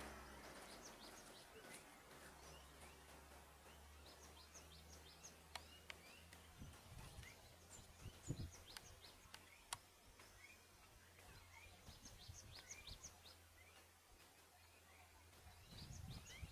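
Near-silent ambience with faint bird chirps, short high calls repeated all through, over a low steady hum. A few sharp clicks and a soft low thud about eight seconds in.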